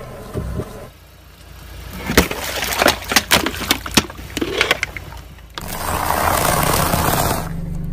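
Car tyres rolling over and crushing objects on asphalt. In the middle there is a dense run of sharp, irregular cracks and snaps as something breaks under the wheel. Then, after a cut, comes a steady crunching hiss as the tyre grinds a pile of cheese puffs.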